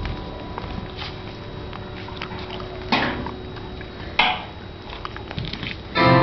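Low stage room noise with small shuffles and clicks, broken by two short rushing sounds about three and four seconds in; guitar music starts right at the end.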